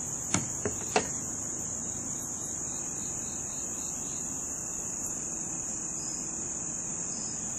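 Steady, high-pitched chorus of outdoor insects. Three sharp taps come in the first second.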